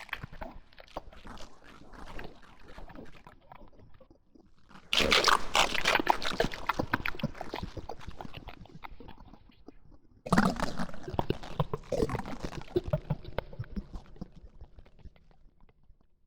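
Sound-designed monster devouring prey: wet, gurgling chewing and growling. It surges suddenly loud about five seconds in and again about ten seconds in, and each surge trails off.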